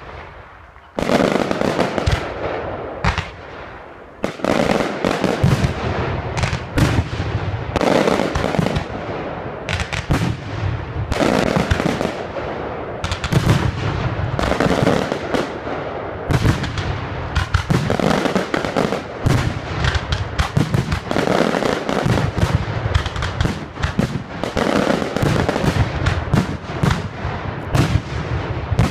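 Fireworks display: aerial shells bursting one after another in quick, near-continuous succession. The barrage starts about a second in and keeps going, with a brief lull around four seconds.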